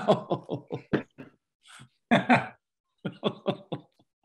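A man laughing heartily in three bursts of quick ha-ha pulses.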